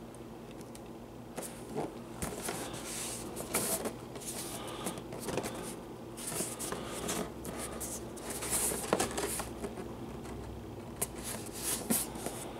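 Cardboard toy box with a clear plastic window being turned over and handled: irregular scuffs, rustles and small taps of fingers on the cardboard, starting about a second and a half in.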